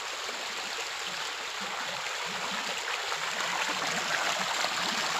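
Flowing stream water running steadily, growing slightly louder.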